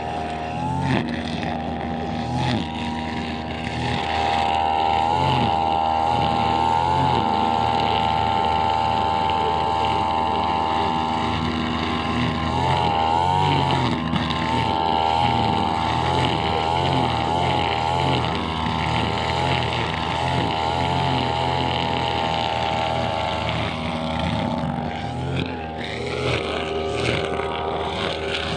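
Brush cutter engine running at high revs while trimming grass. Its pitch wavers and dips a few times as the load changes.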